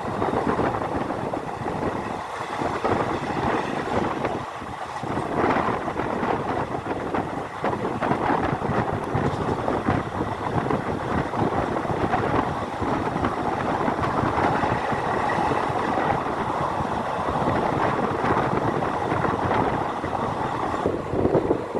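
Express passenger train running along the track: a steady rumble and rattle of wheels on rails.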